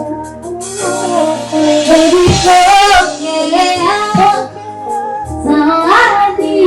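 A woman singing a gliding melodic line over live band accompaniment, amplified through a stage sound system during a sound check.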